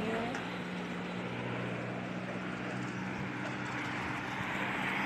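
Backhoe's diesel engine running steadily with a low, even hum.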